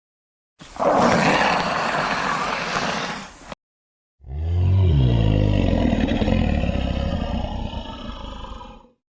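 Two recorded animal calls played back one after the other: a harsh, noisy roar of about three seconds, then after a short pause a longer, deep roar that drops in pitch and fades out over nearly five seconds.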